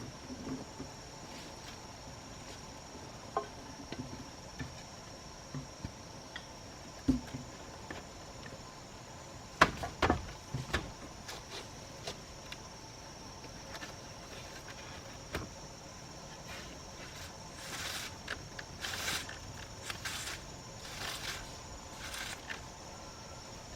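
Insects buzzing steadily and high, with scattered knocks, a few louder sharp hits about ten seconds in, and short bursts of rustling noise near the end.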